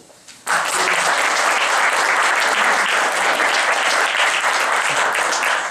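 Audience applauding, starting abruptly about half a second in.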